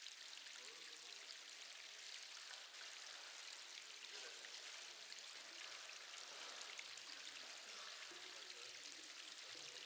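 Faint, steady sound of running water.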